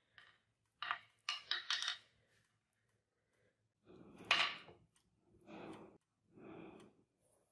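Small metal tools and parts being handled and set down on a workbench. A few quick clinks come about a second in, a louder knock follows about four seconds in, then two softer, longer handling sounds.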